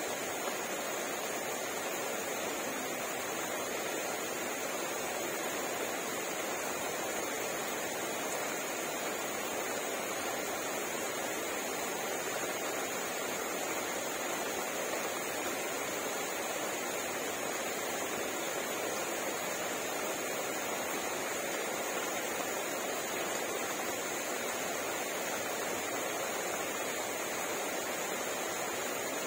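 Steady rain falling, an even, unbroken hiss that does not change in strength. A thin, steady high-pitched tone runs faintly above it.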